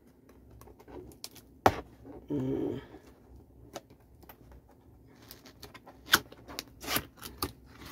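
Fingers picking and tapping at the edge of a cardboard box to open it, giving scattered sharp clicks and scrapes. There is one loud click about a second and a half in, and a quicker run of clicks over the last few seconds.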